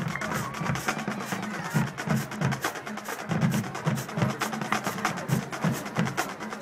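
High school marching drumline playing a rapid percussion cadence: crisp snare drum strikes over a pattern of low bass drum beats.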